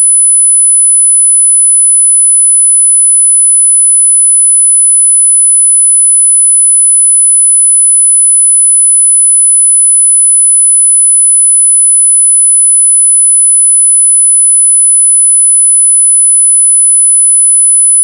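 Small buzzer driven by an NE555 timer circuit, giving one steady, very high-pitched tone that does not waver or pulse: the 'high frequency sound' the circuit makes to repel mosquitoes.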